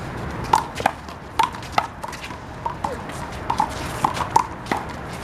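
Handball rally: a rubber handball smacking against the wall and the court in quick, irregular succession, about nine sharp hits, each with a short ring.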